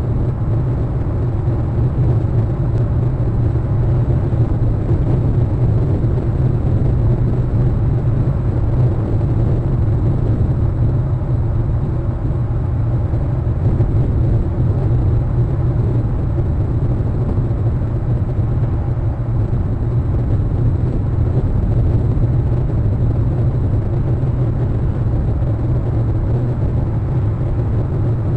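A steady low rumble with a faint hiss above it, unchanging in level throughout.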